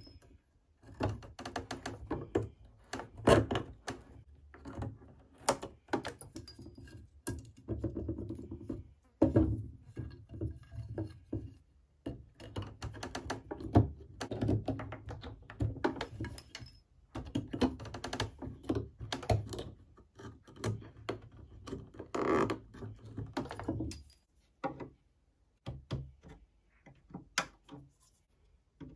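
Carpenter's pincers and a flat blade prying a nailed wooden trim strip off an old wooden chest and pulling out its old nails. The sound is irregular clicks and knocks with scraping of metal against wood, in short bouts with brief pauses.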